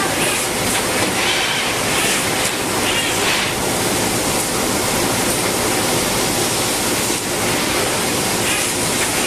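Automated plant bedding machinery running with a steady, loud rushing noise, and a higher hiss that swells and fades now and then.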